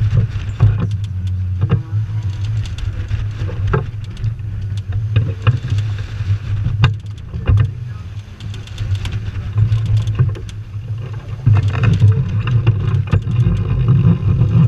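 Strong wind of about 20 knots buffeting the microphone, a steady low rush, on a sailboat heeled over close-hauled. Water splashes along the hull, and there are scattered sharp knocks.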